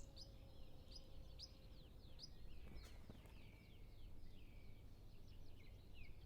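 Faint birdsong: pied flycatcher with other small birds, many short, quick downslurred chirps overlapping one another, over a low outdoor rumble.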